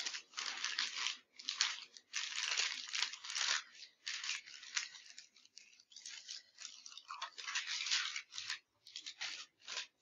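Paper packaging of a pair of sterile surgical gloves being peeled open and unfolded: a run of crinkling, tearing paper rustles with short pauses between them.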